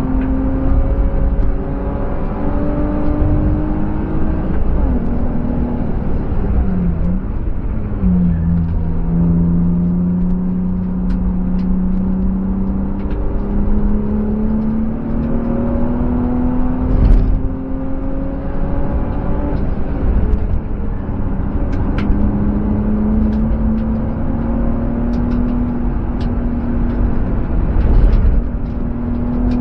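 BMW E36 320i's M50 2.5-litre straight-six engine heard from inside the cabin on a track lap: its note drops as the car brakes for a corner about five to eight seconds in, then climbs steadily as it accelerates, with a gear change about twenty-one seconds in. A few sharp knocks come through, the loudest about seventeen and twenty-eight seconds in.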